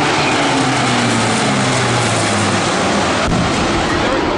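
Loud military aircraft engine noise: a dense rush with a low steady hum that drops away about two and a half seconds in. A single sharp click comes a little after three seconds.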